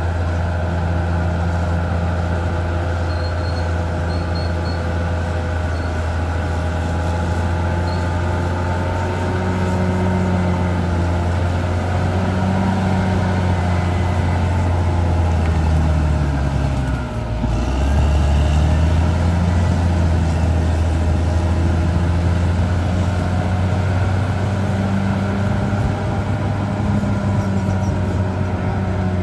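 Caterpillar D6R XL bulldozer's diesel engine running with a deep, steady drone. About halfway through, its note drops sharply for about a second and then picks back up.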